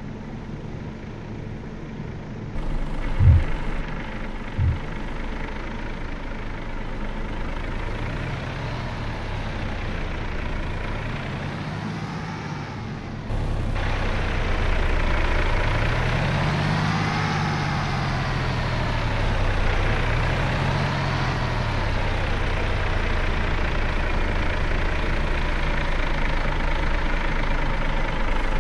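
Heavy truck's diesel engine running at low speed, its pitch rising and falling several times as it is throttled up and eased off. Two short thumps come a few seconds in, and the engine gets suddenly louder about halfway.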